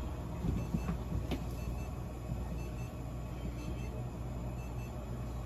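Steady low room hum with a few faint clicks.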